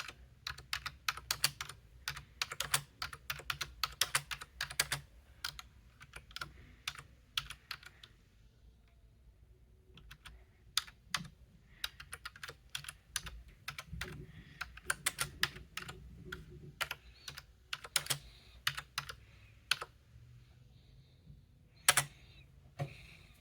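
Typing on a Logitech K480 Bluetooth keyboard: rapid runs of key clicks, a pause of about two seconds midway, and more typing, ending with a couple of louder key strikes near the end.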